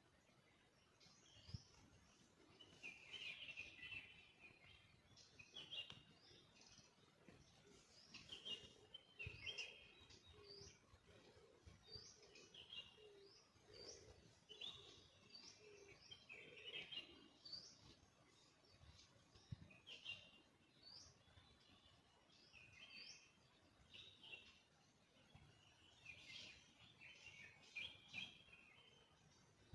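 Faint bird calls: many short, high chirps, some rising, repeating every second or so, with a few fainter low calls underneath.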